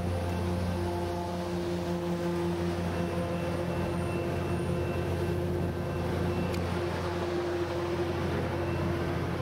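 Coaster diesel commuter train pulling slowly out of the station: a steady low drone with a few held tones over a constant rolling rumble.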